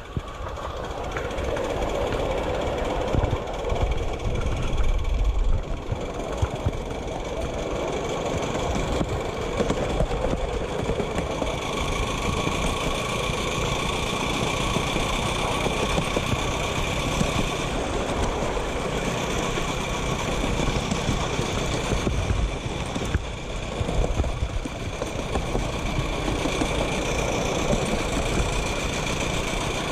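Miniature steam locomotive heard close up, a steady mechanical running noise that carries on without a break.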